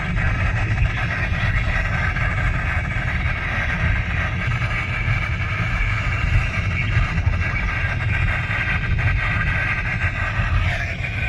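Weather radio receiver tuned to NOAA Weather Radio station KZZ41, putting out a steady wash of static from very poor reception, over the low rumble of a moving vehicle.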